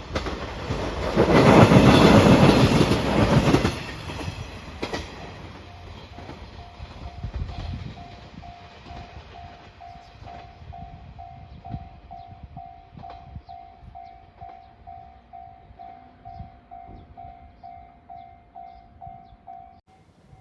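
A train passes loudly over the level crossing with clattering wheels for about three seconds. The crossing's warning bell then keeps ringing in an even ding-ding, about two strokes a second, until it stops shortly before the end.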